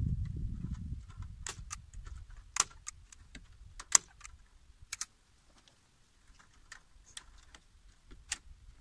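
T50 manual staple gun driving staples through chicken wire into a wooden door frame: four sharp snaps about a second apart, then a few fainter clicks.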